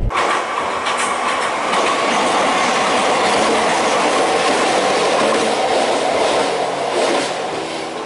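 Wakayama Electric Railway's Tama Densha electric train passing close by as it crosses a low girder bridge. A steady rolling rush of wheels on rail, with a few sharper clatters from the rail joints, easing slightly near the end.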